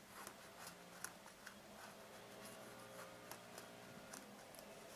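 Near silence, with faint scratching and light ticks of a pen tracing around the edge of a metal jar lid on fabric.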